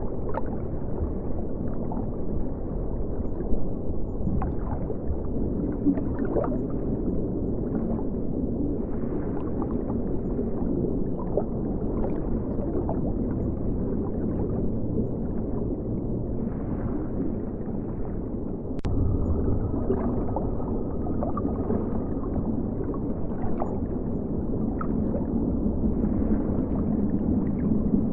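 River water heard with the microphone under the surface: a steady, low gurgling rush with scattered small ticks and clicks, and one sharper click about two-thirds of the way through.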